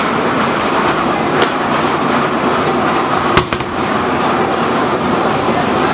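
Steady mechanical noise from a B&M wing roller coaster train being carried slowly over the crest of its lift hill, with one sharp click about three and a half seconds in.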